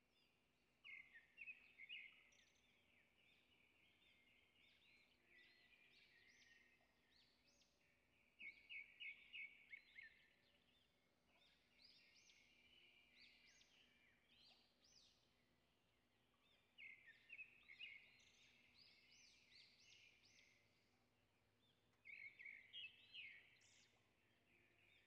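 Faint birdsong: a songbird sings four short, rapid, chirpy phrases several seconds apart, with quieter chirping between them.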